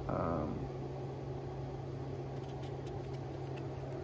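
A short hum of a woman's voice at the start, then a steady low hum underneath, with a few faint light clicks in the second half as the knife is worked out of its leather sheath.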